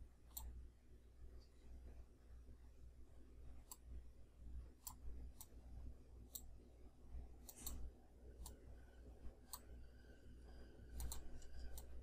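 Faint computer mouse clicks, about a dozen scattered at irregular intervals, over a low electrical hum.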